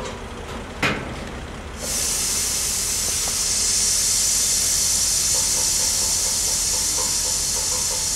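Freight train of tank cars rolling past, with a sharp click about a second in, then a loud steady hiss of air from the train's air brakes that starts suddenly about two seconds in.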